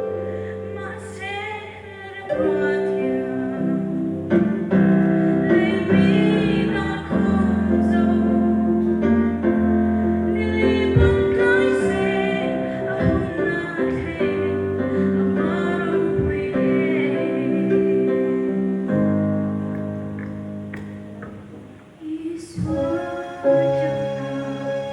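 Female voice singing with keyboard accompaniment: sung lines that waver in pitch over held chords.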